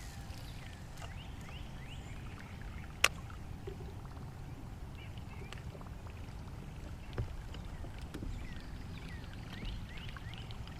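Outdoor ambience on the water: a steady low rumble, like wind on the microphone, with faint scattered chirps. A single sharp click comes about three seconds in, and a smaller one near seven seconds.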